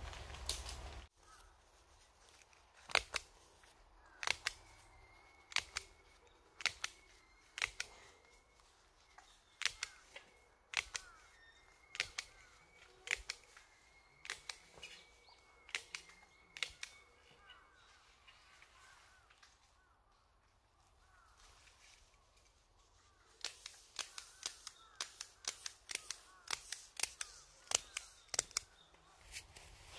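Sharp snapping clicks, about one a second and then in a quicker run near the end: plastic clips being snapped onto a greenhouse's plastic film.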